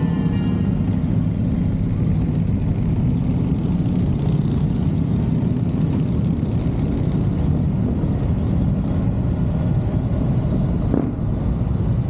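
Honda Monkey's single-cylinder engine running steadily while riding.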